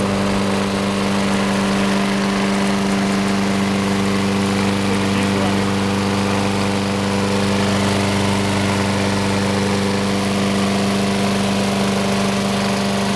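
Briggs & Stratton engine on a Troy-Bilt walk-behind lawn mower running steadily at a constant speed, with no change in pitch. The freshly repaired engine runs pretty good.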